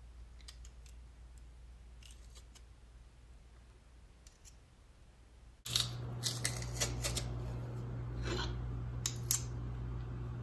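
Hand-held metal garlic press crushing garlic cloves. A few faint clicks at first; from a little past halfway come louder, quick metallic clicks and scrapes of the press.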